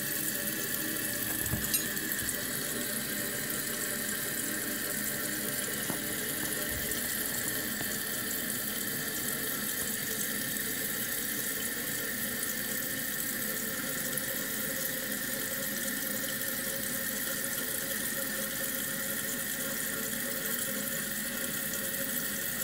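Toilet fill valve running on without shutting off, water hissing steadily into the tank with a thin, steady whistling tone. The valve is defective: it keeps filling even though its float is submerged.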